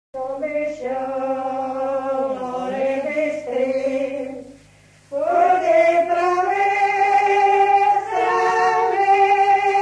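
Background music of a choir singing long, held chords, with a short pause about five seconds in.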